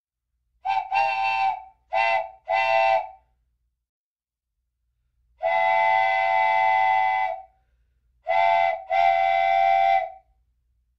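Old train whistle blowing a series of steady-pitched blasts. It sounds two short-then-long pairs, one long blast of about two seconds, and then a short blast followed by a longer one, with silence between the groups.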